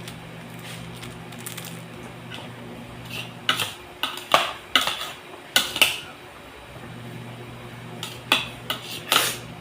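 Metal cooking utensil clinking and knocking against a pot or pan: a run of sharp strikes clustered in the middle and again near the end, over a steady low hum.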